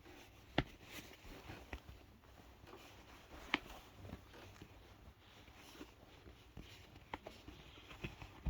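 Faint handling noise from a pair of sneakers: a few light taps and clicks, two of them sharper, about half a second in and about three and a half seconds in, over low room tone.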